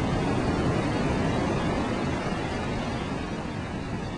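Steady wash of ocean surf breaking on a sandy beach, mixed with wind rumbling on the microphone.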